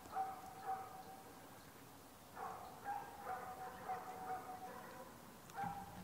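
A dog barking in short repeated bursts, about two a second, in two runs with a brief pause between. A faint steady high tone runs underneath.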